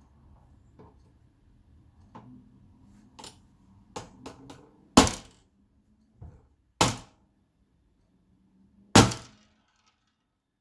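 Knocks and cracks from parts of a projector being pried and struck during a teardown: a few light clicks, then three loud sharp cracks about two seconds apart.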